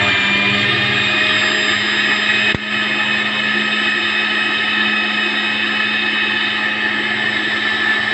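Electric blender motor running steadily, whipping milk, ice and coffee into a frothy cold coffee, with a brief dip in level about two and a half seconds in.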